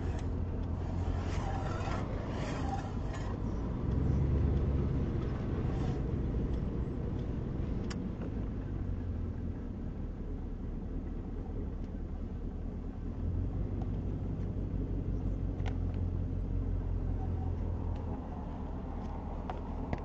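Inside the cabin of a 1968 Chevelle Nomad station wagon on the move: a steady low engine drone with road and wind noise, swelling for a moment about four seconds in and again a little later.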